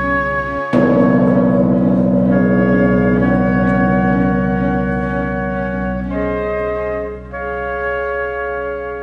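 Background music of slow, sustained chords; under a second in a new, louder chord enters with a sharp attack, and the chords shift twice near the end.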